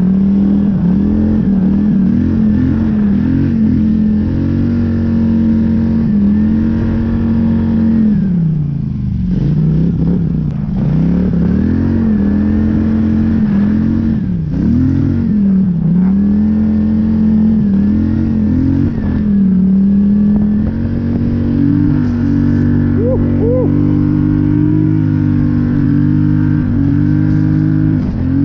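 Polaris Scrambler 850 ATV's parallel-twin engine running steadily under load through deep snow, its pitch dropping and climbing back as the throttle is eased off and opened again about nine seconds in and again around fifteen seconds.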